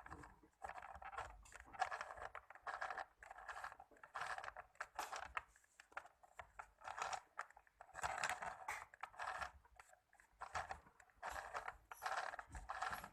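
Mini sewing machine worked by hand at the handwheel, its needle and feed mechanism clicking and scraping through the cloth in short, uneven bursts as it sews a row of stitches.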